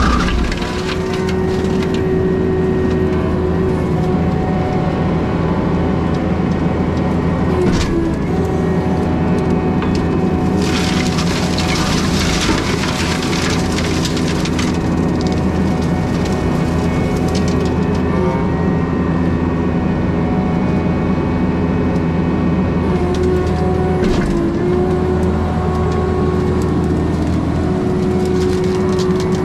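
Skid steer engine running hard, driving a Brush Hound FH Series flail mower, with a steady pitched drone that sags briefly twice under load. About 11 seconds in, a dense burst of shredding noise lasts roughly three seconds as the flails chew through brush or wood.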